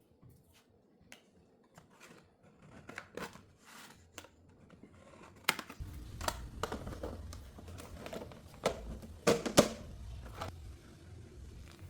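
Handling noise: a series of light clicks and taps, sparse at first and busier and louder from about halfway through, over a low hum that starts at the same point.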